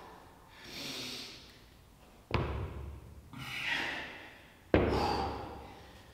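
A man breathing hard in two heavy exhales, winded after a set of dumbbell swings. Between the breaths come two sharp thuds as dumbbells are set down on the gym floor, about two seconds in and again near five seconds in.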